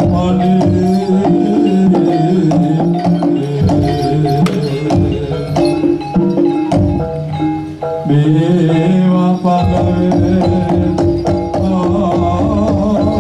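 Loud music with a steady percussion beat under a held melody.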